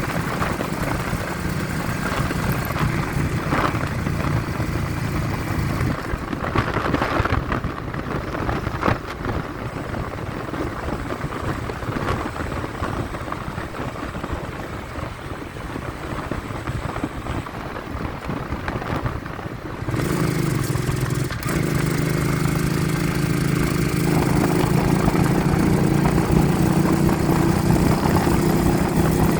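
Vehicle engine running during a ride, with wind blowing across the phone's microphone. The engine quietens about six seconds in, then picks up sharply at about twenty seconds, its pitch slowly climbing as it accelerates.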